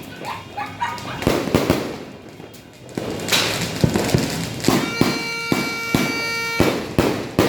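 A 94-shot fireworks cake (Diamond Fireworks 'Golden Dreams') firing. Sharp bangs come two at a time, then a crackling burst, then a quick run of shots about twice a second. A steady horn sounds for about two seconds in the middle.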